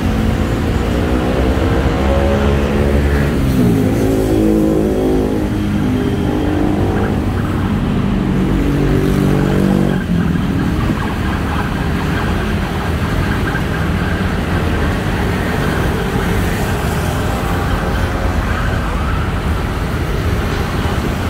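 Busy city-street traffic with a steady rumble of engines and tyres. In the first half several motor vehicles accelerate past one after another, their engines rising in pitch.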